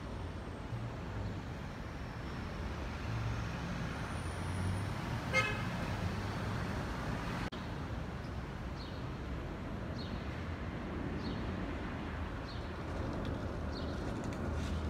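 City street traffic: a steady low rumble of passing vehicles, with a short car horn toot about five seconds in.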